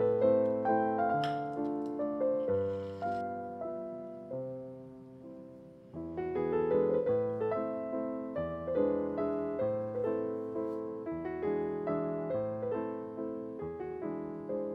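Piano background music, notes struck and left to fade, with a short lull about six seconds in before the playing picks up again.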